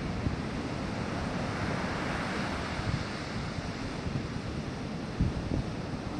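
Atlantic surf breaking and washing up a sandy beach: a steady rushing wash that swells about one and a half to three seconds in. Wind buffets the microphone in low gusts.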